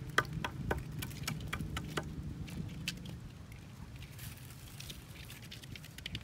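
Scattered light clicks and rustles from hands handling a green nylon net bundle on a bamboo-and-wire-mesh crab lift net, dense for the first three seconds and sparser after. A low steady hum sits underneath.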